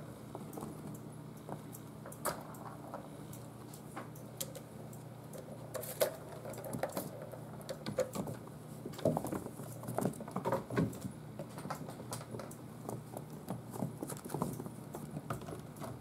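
Six-week-old kittens playing on a wooden floor: an irregular patter of small paws and light taps, with a burst of louder knocks and clatters near the middle as a kitten bats at a plastic ball-track toy.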